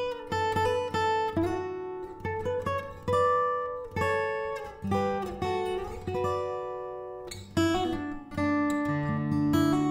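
Background music on acoustic guitar: slow, gentle plucked notes and strums, each ringing and fading before the next.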